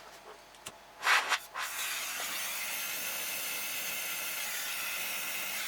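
Pressurised refrigerant gas hissing steadily from the charging hose and valves of a refrigerator's sealed system, after a short burst about a second in.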